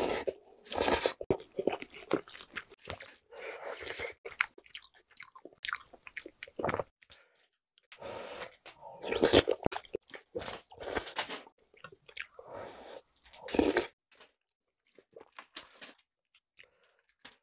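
Close-up eating sounds: slurping of chewy jjolmyeon noodles with soup, and wet chewing of noodles and soft tofu, in irregular bursts. The sounds grow sparse in the last few seconds.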